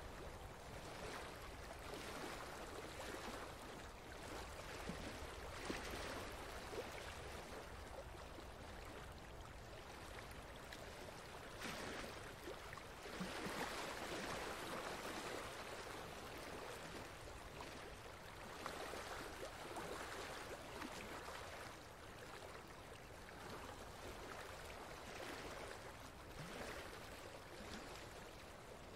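Steady running water like a stream, a soft continuous rush that swells and eases gently every few seconds.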